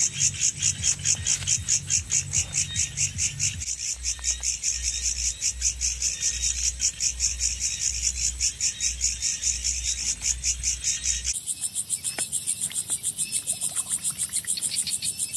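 Insects chirping in a fast, even pulse of several beats a second. About eleven seconds in the chorus changes abruptly to a higher, quicker pulse.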